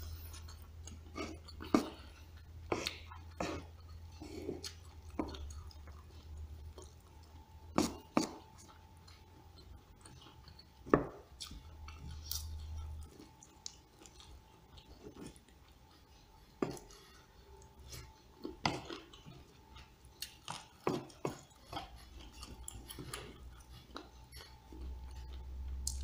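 Close-up eating: a metal spoon and fork clicking and scraping against a tabletop at irregular intervals, with chewing of mouthfuls in between.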